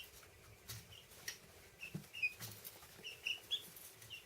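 Young chicks peeping softly: short, high peeps at irregular intervals, several in quick succession about three seconds in, with a few faint taps or rustles among them.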